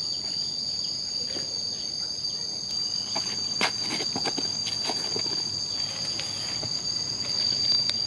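Cicadas droning steadily in two high, unbroken tones. In the middle come a few short rustles and clicks as a nylon tent flap is handled.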